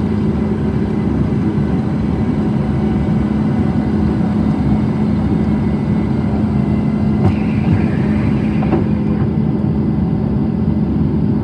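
Jet airliner's engines at takeoff power, heard inside the passenger cabin: a loud, steady hum with a strong low drone. About seven seconds in, a brief higher hiss opens and closes with a click.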